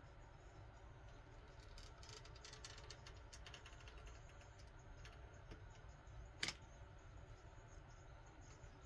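Near silence, with faint clicking and crackling from the coil spring of a power twister bar as it is bent in the hands, and one sharper click about six and a half seconds in.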